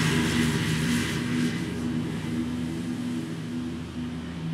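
Scag Cheetah zero-turn mower running under load, engine hum with the whir of the cutting deck, fading steadily as the mower drives away.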